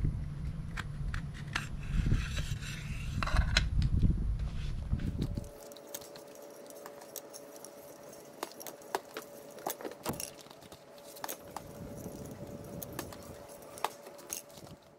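Close-up handling of a white plastic wall plate and cable: the light plastic rattles and clicks over low handling noise. About five and a half seconds in, it drops to a quieter stretch with a faint steady hum and scattered light taps.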